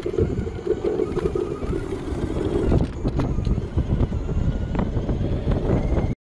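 An electric scooter, its 10-inch front hub motor driven by a 72 V controller, accelerating hard from a standstill to about 30 mph. Wind buffets the handlebar microphone over a low road rumble, with a steady hum in the first few seconds. The sound cuts off suddenly near the end.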